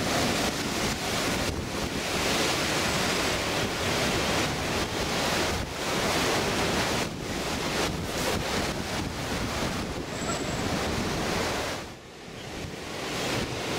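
Storm surf: heavy waves crashing against a sea wall and washing across a flooded seafront, with wind gusting on the microphone. The noise drops sharply about twelve seconds in, then builds again.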